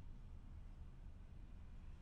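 Faint, steady brown noise: an even, deep hiss with most of its weight low down, unchanging and with no distinct events.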